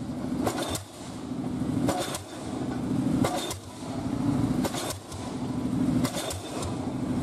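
Pile hammer on a crawler piling rig driving a precast concrete pile, striking about five times at a steady beat of roughly one blow every second and a quarter, each blow a sharp bang with a short ring. The rig's engine runs underneath.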